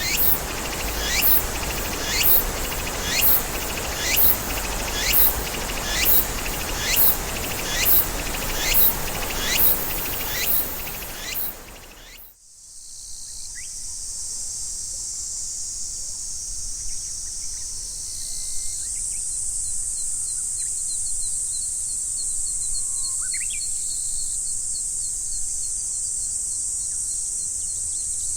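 Outdoor insect and bird ambience. For the first twelve seconds a high call repeats about once a second, each falling in pitch, over a steady rushing noise. After a sudden cut, a steady high-pitched insect drone continues, with a few faint bird chirps.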